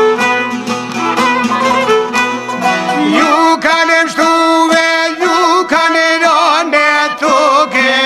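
Albanian folk song recording: a violin plays a wavering, ornamented melody over plucked string accompaniment with a steady beat.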